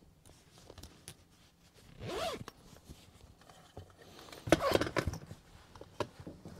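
Plastic interior trim cover being handled: a short scrape about two seconds in, then a cluster of clicks and scraping a little past the middle.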